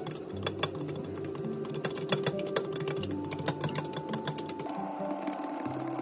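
Wooden chopsticks whisking flour into soy milk in a glass measuring jug, clicking rapidly and unevenly against the glass.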